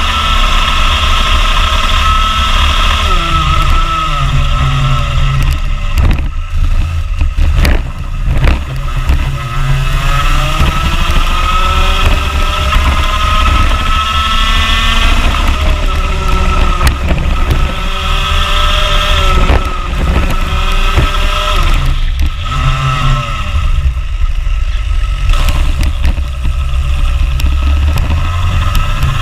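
Rotax Junior Max 125cc two-stroke kart engine heard onboard at racing speed. It revs up again and again, then drops off sharply several times as the driver lifts for the corners.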